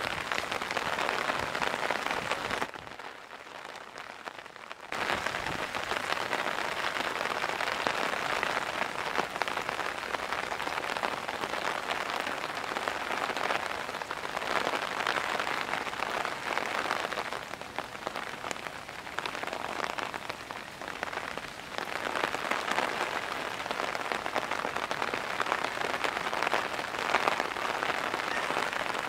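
Heavy rain falling, a steady dense hiss. It dies away for about two seconds near the start, then comes back.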